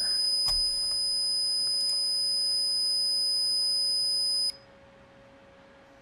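Passive buzzer on an Arduino breadboard sounding a steady, high-pitched 5,000 Hz tone, driven by the Arduino's tone() function, then cutting off suddenly about four and a half seconds in.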